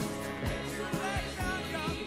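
Music: a recorded pop song with a steady drum beat about twice a second and a wavering melody line, slowly getting quieter.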